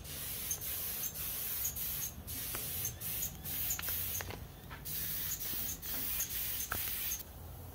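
Paint spray gun hissing as two-pack paint is sprayed onto an engine block, in a series of trigger bursts with short breaks and one longer pause about four seconds in; the spraying stops near the end.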